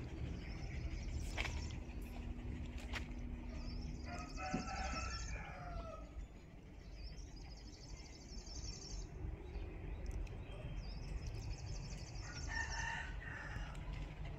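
A rooster crowing twice, once about four seconds in and again more briefly near the end, with repeated high trilling chirps between the crows.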